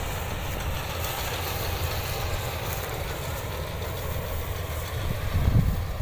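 Combine harvester's engine running steadily, a low rumble.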